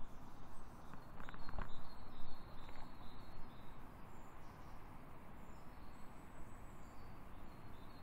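Outdoor park ambience: a few footsteps on a path about a second in, then a steady background hiss with faint, high, short bird chirps.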